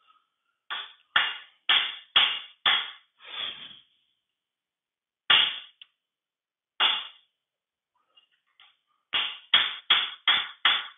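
Hammer striking a steel punch held against a 1953 Allis-Chalmers B final drive housing, ringing metallic blows in groups: about six quick blows, two single ones, then five in quick succession near the end. He is tapping out a stuck, rusted part.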